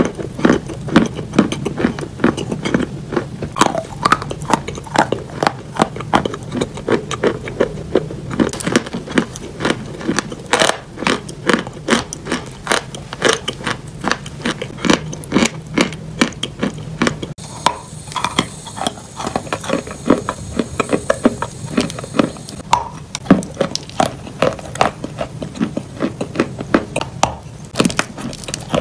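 Close-miked chewing and crunching of eating chalk: sharp, dry crunches several times a second. For a few seconds past the middle a faint steady hiss lies under the crunches.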